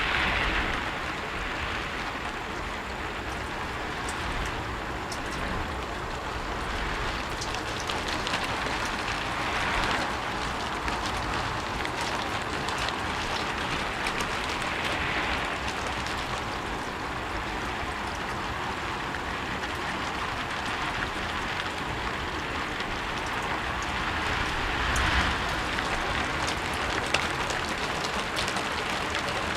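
Steady rain falling on a roof, a continuous hiss with many fine drop ticks and a few brief swells in intensity.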